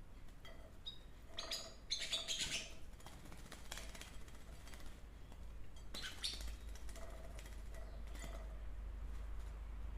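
Pet canaries chirping in short, scattered calls, with a busier cluster of chirps about two seconds in and another about six seconds in.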